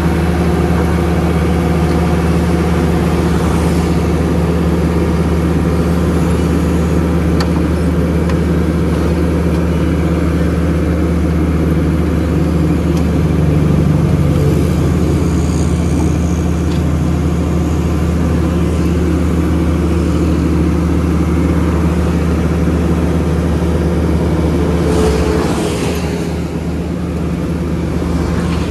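NIGATA NFB6C asphalt paver's diesel engine running steadily with a deep, even hum while paving; near the end the deepest part of the hum eases off.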